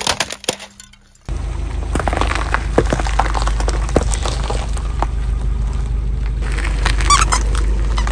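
A plastic toy ukulele cracking under a car tyre, dying away within the first second. Then a car tyre rolls slowly over bell peppers: scattered crunches and pops of the peppers splitting over a steady low rumble, with a short squeak near the end.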